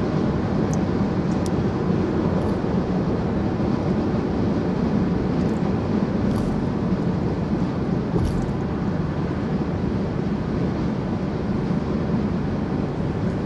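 Steady road and tyre noise of a car driving at highway speed, an even rumble with a few faint clicks.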